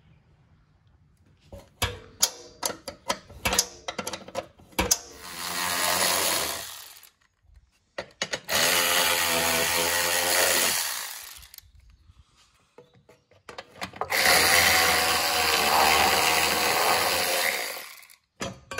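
Cordless electric ratchet spinning nuts off a bracket's bolts under the car, in three runs of about two to three seconds each. Before them comes a quick series of sharp metal clicks.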